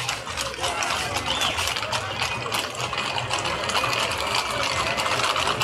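Hooves of many horses clattering on a paved street: a dense, irregular run of sharp clicks, with crowd voices faintly behind.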